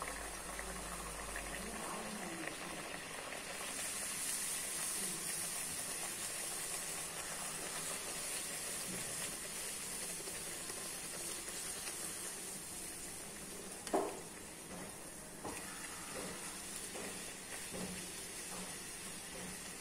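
Ragi poori deep-frying in hot oil in an iron kadai: a steady sizzle and hiss of bubbling oil as a slotted spoon presses the poori down to puff it. One sharp knock comes about two-thirds of the way through.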